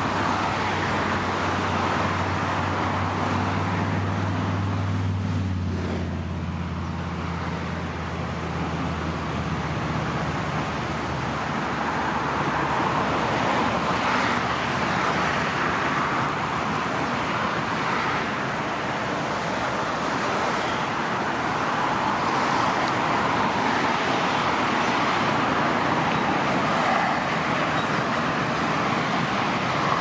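Steady road traffic noise, with the low drone of an engine through roughly the first ten seconds.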